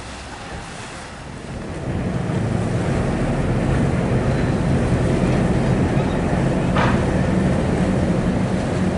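Wind and waves at first. About two seconds in, a car ferry's engines come up as a steady low drone over churning propeller wash while the ship backs into its berth.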